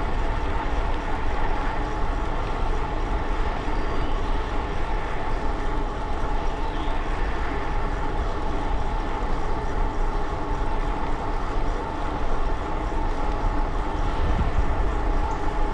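Steady riding noise on a fast trail ride: wind buffeting the microphone under a continuous rolling rush, with a steady mid-high whine running through it.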